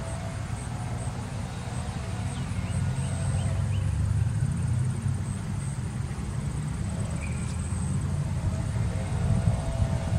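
A steady low rumble with a few faint short chirps above it.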